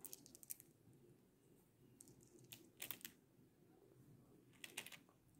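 Faint clicks of small tube beads knocking together as they are handled and threaded onto string, in a few short runs: just at the start, around the middle and near the end.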